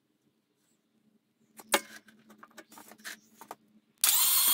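Several knocks and a light clatter of metal parts being handled. Then, about four seconds in, a loud steady motor whine starts suddenly: the rebuilt Rover V8 being spun over on its starter motor to prime the oil system and fill the hydraulic tappets with oil.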